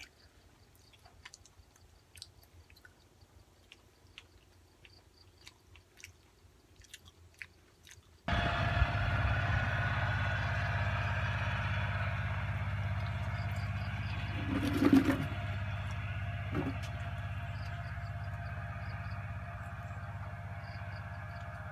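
Soft chewing and small mouth clicks of someone eating durian. About eight seconds in, a steady machine-like hum with a low drone starts suddenly and keeps going, with a single knock partway through.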